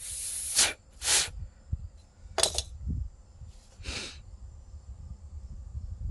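Four short hissing bursts of pressurized spray: a cleaning spray blown through the carburetor's float bowl bolt. The first burst is the longest, and the others are shorter and spaced out over the next few seconds.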